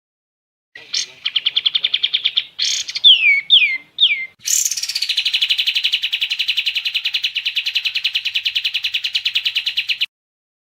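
Kapas tembak songbird singing: a short rapid trill, then three quick down-slurred whistles, then a long, fast, even trill that stops abruptly near the end.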